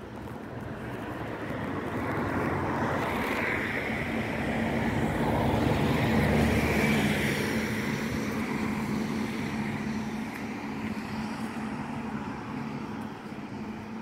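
A motor vehicle passing by. Its engine hum and rumble grow slowly louder to a peak about halfway through, then fade away.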